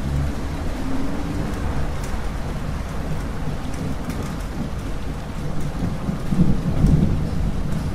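Steady rain falling, with scattered drops ticking, under a low rumble of thunder that swells and grows louder about six seconds in.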